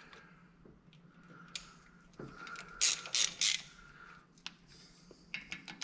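Hand socket ratchet clicking as it turns in the small screw that holds the new brake rotor to the hub, with three louder clicks about a third of a second apart midway and a few more near the end.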